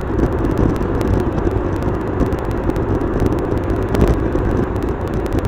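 Car cabin noise picked up by a dashcam at highway speed: a steady rumble of road and engine noise. It is played back at many times normal speed, so it is chopped by frequent, irregular clicks.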